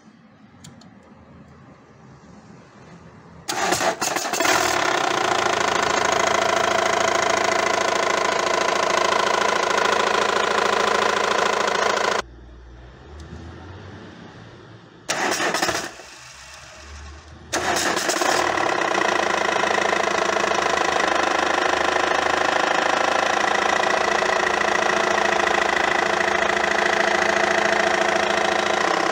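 Diesel car engine idling, coming in about three and a half seconds in, dropping out twice and picking up again. Its running noise sounds like a bad bearing but is put down to loose crankshaft pulley bolts.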